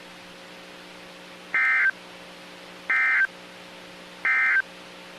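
Three short electronic data bursts from NOAA Weather Radio, each about a third of a second and spaced about a second and a half apart: the SAME end-of-message code that marks the close of an alert broadcast. A steady low hum is heard between the bursts.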